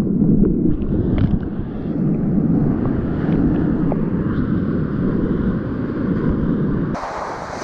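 Whitewater rapids rushing around a kayak at water level: a dense, low, muffled rush of churning water mixed with wind on the microphone. About seven seconds in the sound suddenly turns brighter and hissier.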